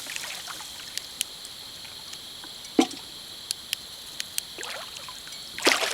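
Water splashing and lapping around a kayak while a large flathead catfish is fought on the line. There are scattered light clicks and knocks, and two louder splashes, about three seconds in and near the end.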